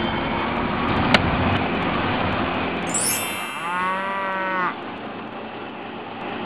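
Steady street ambience with a click about a second in, then a cow mooing once for about a second, just after a short high sweep.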